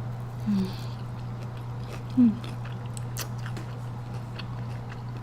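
Close-miked eating sounds: scattered wet clicks and smacks of chewing, with two short low hums of the voice, over a steady low hum.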